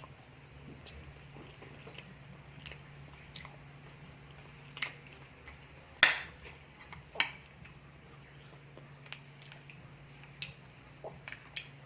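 Close-miked eating: soft chewing and biting mouth sounds, with a few sharp clicks, the loudest about six seconds in, and small ticks near the end.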